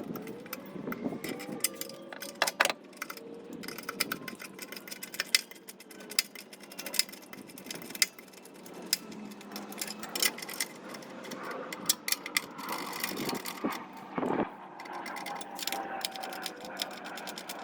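Many sharp metal clicks, knocks and rattles of truck battery hold-down hooks and brackets being fitted by hand.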